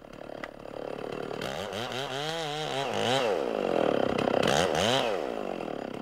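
Chainsaw revving up and down over and over, its pitch rising and falling roughly once a second, growing louder about a second in.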